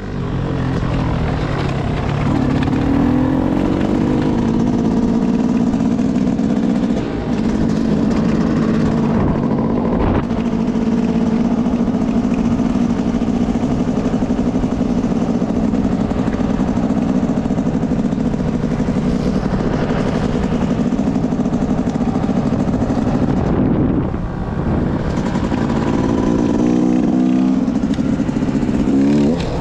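Yamaha YZ dirt bike engine running under throttle along a trail. It eases off briefly about ten seconds in and again around twenty-four seconds, and the revs climb near the end.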